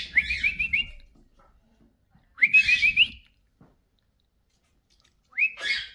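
Small pet parrot giving short, rising whistled chirps in quick runs: one run right at the start, another about two and a half seconds in, and a single note near the end.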